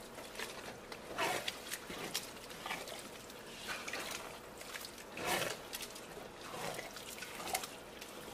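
Spatula stirring washed rice through thick tomato sauce in a large pan: irregular wet squelching strokes, roughly one a second.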